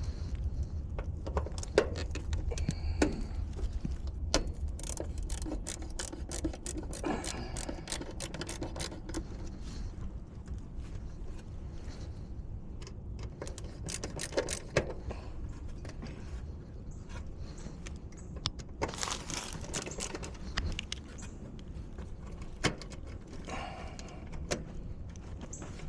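Scattered sharp clicks and light metallic rattling, as of tools or small metal parts being handled, over a steady low rumble.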